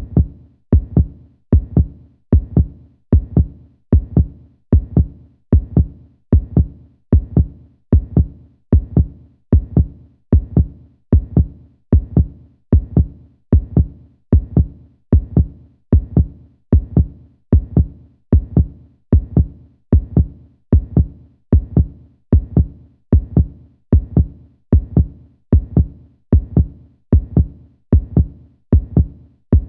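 Heartbeat sound effect: a steady lub-dub rhythm of deep double thumps, a little more than one beat a second.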